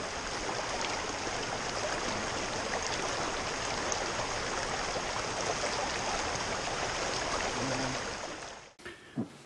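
Shallow rocky stream rushing over stones and small cascades, a steady full rush of water. It fades and cuts off shortly before the end.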